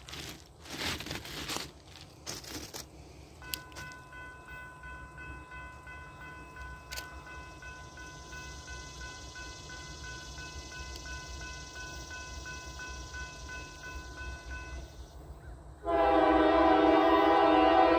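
Faint steady high-pitched tones sound from about three seconds in. Then, about 16 seconds in, a Norfolk Southern freight locomotive's air horn starts sounding a loud chord and keeps sounding through the end.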